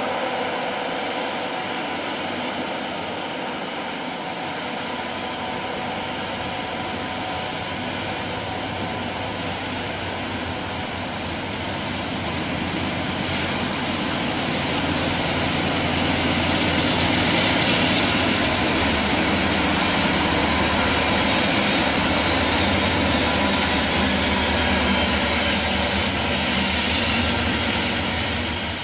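BNSF freight train's diesel locomotives coming out of the Cascade Tunnel and passing close, engines running hard with a steady whining hum. The sound grows louder about halfway through and stays loud as the units go by.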